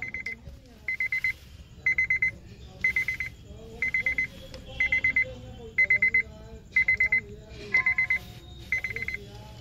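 Electronic beeper sounding a high-pitched pattern: short groups of about four rapid beeps, repeating about once a second.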